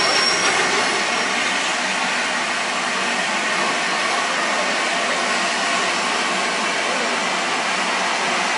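Steam-hauled passenger train pulling away, a steady rushing noise of steam and moving coaches.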